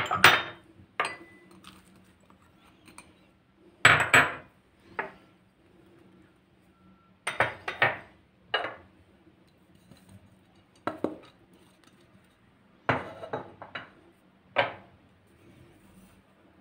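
Small glass bowls and jars knocking and clinking against a mixing bowl and being set down on a stone countertop as ingredients are tipped in, in short clusters of sharp knocks every few seconds.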